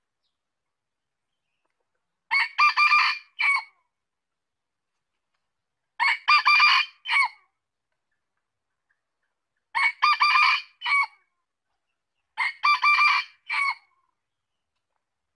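Male red junglefowl crowing four times, a crow about every three to four seconds. Each crow is short and clipped, ending in a brief separate final note.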